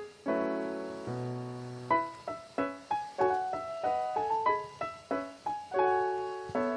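Background music: a solo piano melody, notes struck one by one and left to ring and fade.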